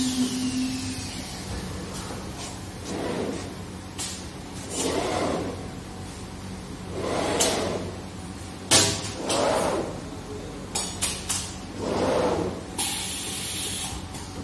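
Automatic CNC glass cutting machine running: a steady motor hum under repeated swelling whooshes as the gantry drives the cutting head across the glass table, with a few sharp clicks and a burst of hiss near the end.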